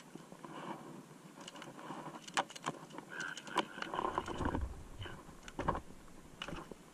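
Handling a fish in a landing net on a plastic kayak: scattered sharp clicks and taps, with a few dull knocks about four to six seconds in.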